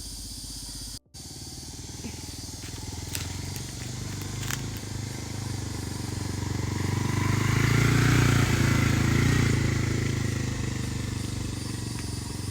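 Motorcycle engine running after being bump-started with a dead battery. Its note grows louder to a peak about two-thirds of the way through, then eases off.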